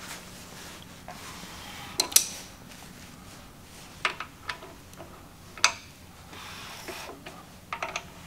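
A handful of short metallic clinks and knocks, the loudest a pair about two seconds in and a quick cluster near the end. They come from hands and tools at work while the crankshaft of a bare Jeep 4.0 inline-six block is turned over by hand with the head off.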